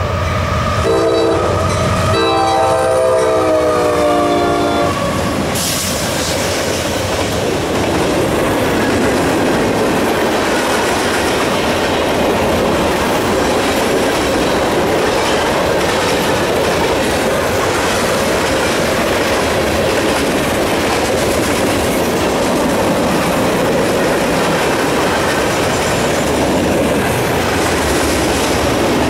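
Freight locomotive's air horn sounding a chord in short blasts and then a longer one that sags slightly in pitch, cutting off about five seconds in. Then the freight cars roll past with a steady rumble and clatter of steel wheels on rail.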